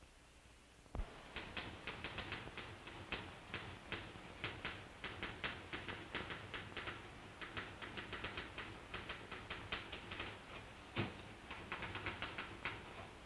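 Typewriter typing: an uneven, quick run of key clicks, several a second, starting about a second in, with one louder strike near the end.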